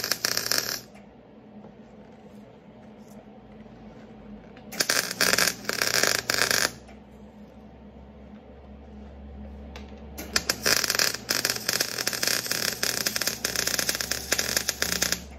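Electric welding arc crackling in three bursts, the longest near the end, while joints of the new catalytic converter are welded into the exhaust pipe. A faint steady low hum runs underneath.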